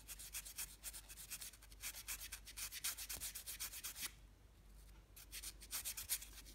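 800-grit sandpaper rubbed back and forth inside the channel of a silver ring core in quick, even strokes, faintly scratching the shine off the metal to roughen it. The strokes stop for about a second roughly four seconds in, then start again.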